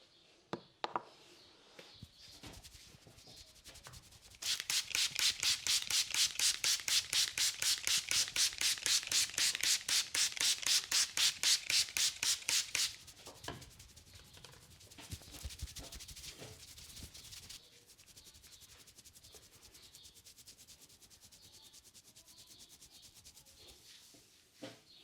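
Hands rubbing rapidly back and forth over a person's hair and scalp during a head massage. A couple of sharp clicks come near the start. Then comes a loud, fast, even scrubbing of several strokes a second for about eight seconds, followed by softer, fainter rubbing.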